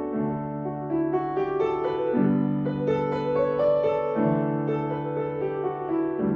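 Solo piano playing an elementary piece in D major. Low held bass notes change about every two seconds beneath a line of shorter, higher melody notes, and the notes ring on under the sustain pedal.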